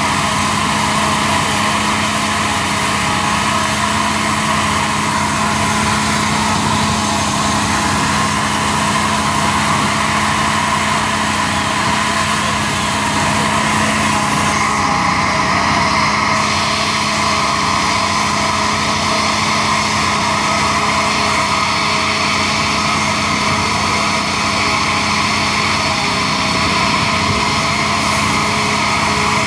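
Fire engine's engine running steadily at the scene, driving its pump to supply the hose lines, with a constant hum.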